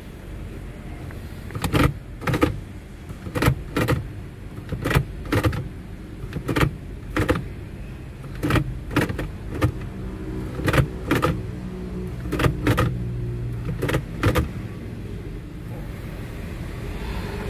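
Automatic transmission gear shifter clicking in pairs, about ten times, as it is worked to test it after its overdrive switch was replaced. A steady low hum runs underneath.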